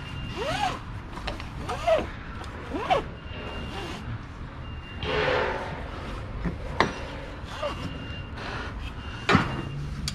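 Ratchet straps being handled at a trailer's side rail: metal hooks clinking and knocking, and webbing rubbing. There are three short squeaks that rise and fall in the first three seconds, a rasping scrape about five seconds in, and a few sharp knocks near the end.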